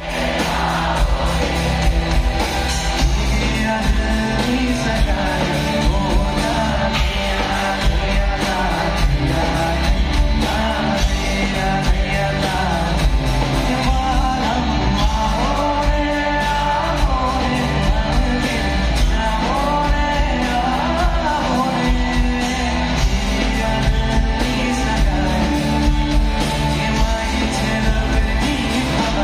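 Live band playing amplified in a large hall: a male singer over drum kit, bass guitar, guitar and keyboard, loud and steady throughout.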